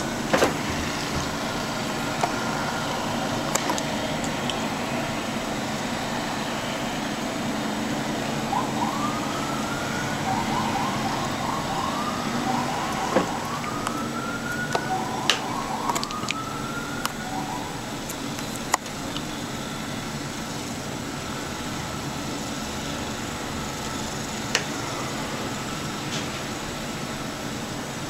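Steady rushing background noise with a low hum. About a third of the way in, a siren sounds for several seconds: a few rising wails with a fast warble between them, then it stops. A few sharp clicks are scattered through.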